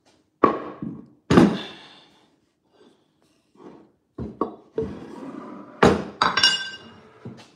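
A heavy wooden end-grain cutting board set down on a wooden counter with two loud thunks, then knocked about as it is placed. Near the end a ceramic plate is set onto the board with a hit and a couple of clinks that ring briefly.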